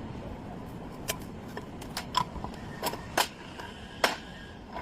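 Five or six sharp metallic clicks and knocks, irregularly spaced, from metal parts or tools being handled, over a steady low machine hum.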